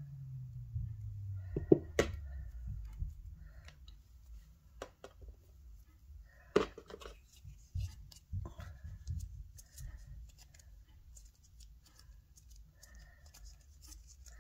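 Hands handling Play-Doh and a plastic Play-Doh tub: scattered light clicks and taps, the sharpest a couple of seconds in and again about halfway.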